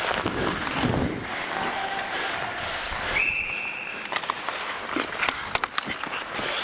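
Referee's whistle, one steady blast of about a second some three seconds in. Before it, skates scraping the ice; after it, scattered sharp clacks of sticks and puck on the ice.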